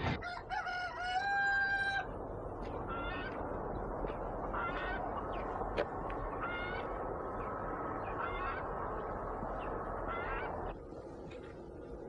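Farmyard fowl calling: a rooster crows once at the start, with a rising note then a long held one. Short pitched calls follow roughly every two seconds over a steady background hiss, which drops away near the end.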